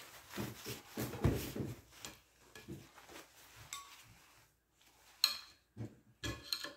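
Gloved hands wiping a steel flexplate with paper towels, rubbing off the oven-cleaner-loosened grime, with a few short metallic clinks near the end as the plate shifts on the workbench.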